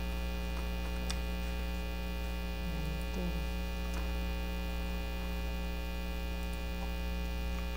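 Steady electrical mains hum with a buzzing edge, the same throughout, and a few faint clicks.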